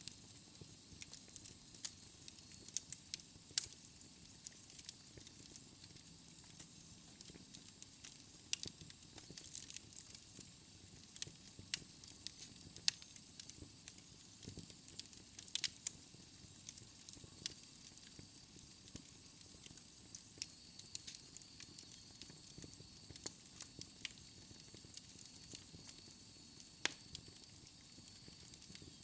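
Fire crackling: frequent irregular sharp pops and snaps over a steady soft hiss.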